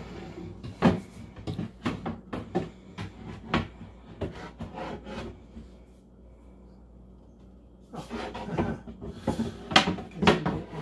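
Shelf boards being slid and knocked into place in a flat-pack kitchen cart: a run of knocks and scraping rubs of board against the cabinet. After a quieter couple of seconds, a cluster of louder knocks comes near the end.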